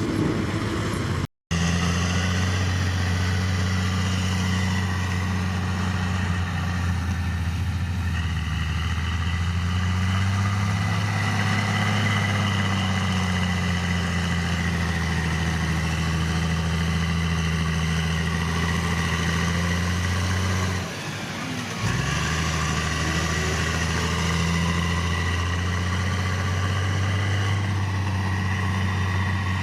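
Heavy construction machine's diesel engine running steadily with a deep hum, its pitch drifting slightly up and down. The sound cuts out completely for a moment about a second and a half in, and the engine hum drops briefly about two-thirds through.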